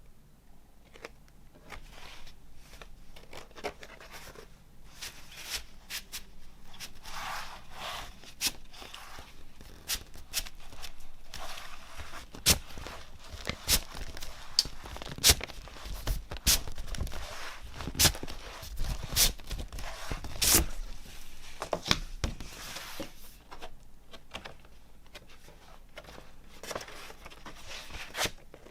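Packaging of a double-LP vinyl album being handled: cardboard and paper sleeves rustling and sliding, with irregular sharp taps and knocks as the jacket and records are moved and set down. The knocks are loudest in the middle stretch.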